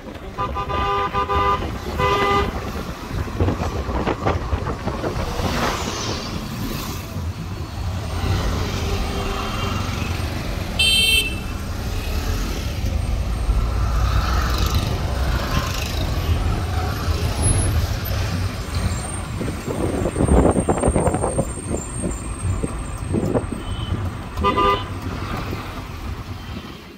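Street traffic: a steady low rumble of vehicle engines, with horns tooting twice near the start, once about eleven seconds in, and once near the end.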